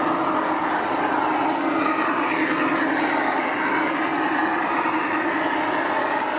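Garden-scale model train of a Conrail diesel locomotive and freight boxcars running along its track, making a steady rolling sound.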